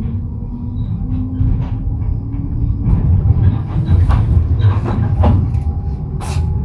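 NGT12 low-floor tram running, heard from inside: a steady low rumble with a faint motor hum that rises in pitch as it picks up speed. Several sharp clacks come in the second half as the wheels run over the points and rail joints, the loudest about six seconds in.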